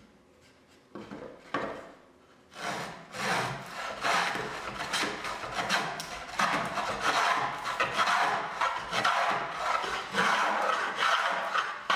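An 1833 wooden plow plane cutting a groove along the edge of a board: repeated rasping push strokes of the iron through the wood, starting about two and a half seconds in after a couple of light knocks as the plane is set on the board.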